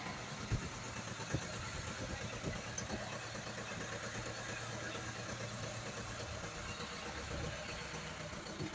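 A passenger boat's inboard engine running steadily, an even low hum, with a few faint knocks and distant voices.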